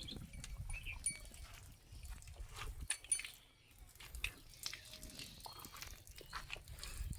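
Livestock in a cattle shed: scattered small knocks and rustles over a low rumble, with a faint short animal call about five seconds in.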